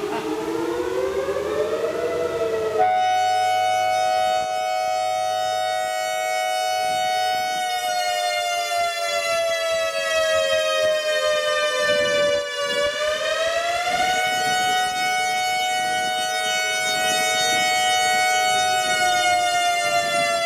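ACA Alertronic AR-1600 electronic outdoor warning siren sounding its attack signal. It is a loud, steady siren tone that glides up, holds, sags and climbs back about two-thirds of the way through, then holds again.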